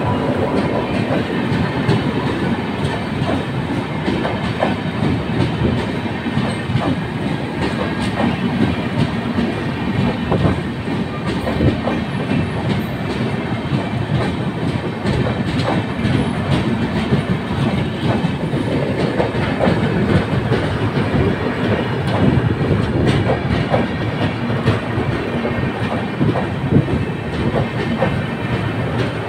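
Indian Railways passenger coaches rolling steadily past at speed, a continuous rumble with the wheels clattering over the rail joints in a steady run of sharp clicks.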